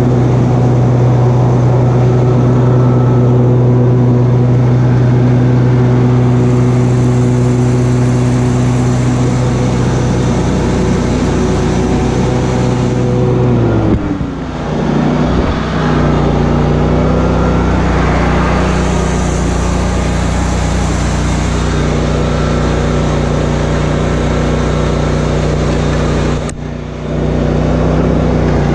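Engine of a stand-on lawn mower running steadily at mowing speed. Its pitch drops and the sound dips briefly about halfway through, and again near the end.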